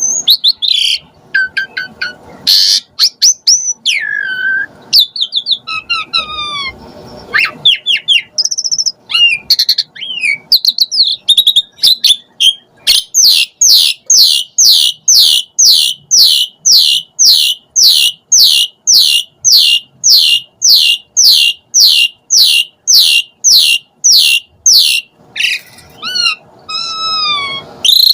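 Javan pied starling (jalak suren) singing: a varied run of whistles, slurred notes and harsh squawks, then about twelve seconds of one fast descending note repeated nearly three times a second, and varied phrases again near the end.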